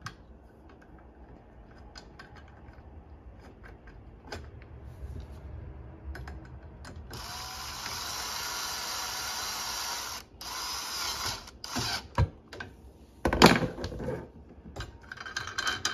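Cordless drill/driver running steadily for about three seconds, driving a machine screw into a nylon-insert stainless lock nut on a dishwasher rack's roller wheel. Several short bursts follow as the screw is snugged tight. Faint clicks of metal hardware being handled come before it.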